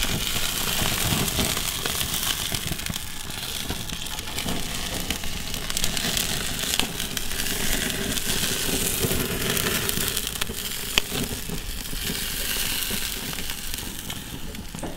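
Fat cap of a tomahawk steak crackling and sizzling as it is seared on the hot grates of a gas grill, with flames flaring under it. The sound is dense, steady and crackly, with a single sharp click about eleven seconds in; the fat is bubbling a little.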